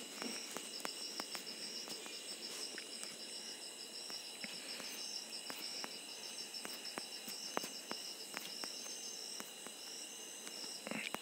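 Faint background chirping of insects: a rapid, pulsing high-pitched trill that goes on without a break, over a soft hiss, with a few light clicks scattered through it.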